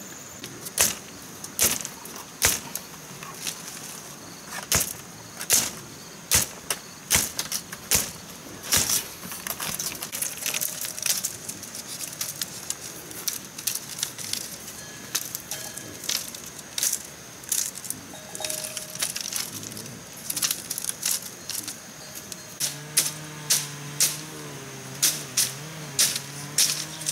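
Split bamboo strips clacking and knocking sharply as they are pushed and tapped into a woven bamboo fence, irregularly, about one to two knocks a second.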